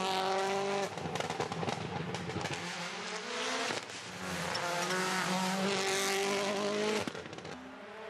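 Turbocharged four-cylinder engines of WRC Rally1 cars at full throttle on a tarmac stage, pitch climbing as the revs rise. Sharp cracks and drops in pitch come about a second in, just before four seconds and about seven seconds in. A fainter, more distant engine runs near the end.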